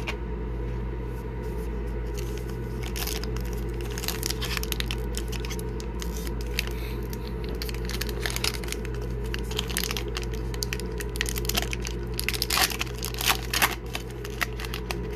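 Silver foil wrapper of a hockey card pack being torn open and crinkled in the hands: crackling rustles that come thicker and louder near the end.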